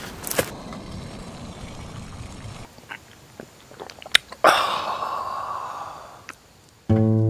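A person chewing and biting food close to the microphone, with a few footsteps on leaf litter at the start. Acoustic guitar music comes in just before the end.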